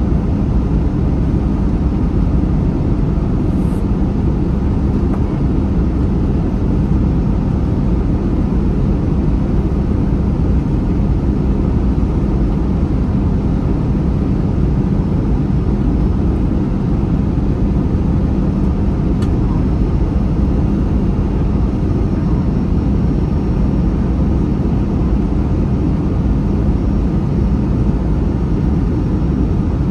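Steady cabin noise of an Airbus A321 airliner in flight: an even, loud rush of airflow and engine sound with a constant low hum.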